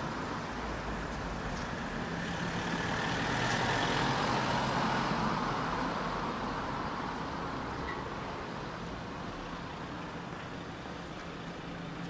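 A motor vehicle passing by: its noise swells to its loudest about four seconds in, then slowly fades, over a steady low hum.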